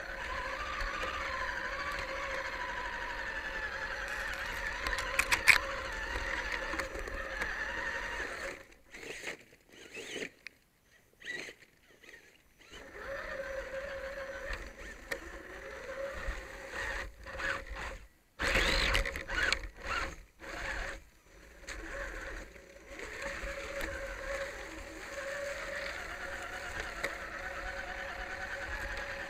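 Electric motors and geared drivetrains of radio-controlled rock crawler trucks whining as they crawl, the pitch rising and falling with the throttle, heard up close from the truck that carries the camera. The whine cuts in and out repeatedly in the middle as the trucks stop and go, with a sharp click about five seconds in.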